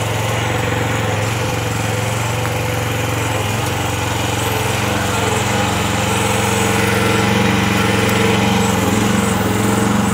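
Small single-cylinder-sounding gasoline engine of a 1-ton Kymron RH14G mini excavator running steadily while the hydraulics are worked to dig; it grows a little louder about halfway through as the load comes on.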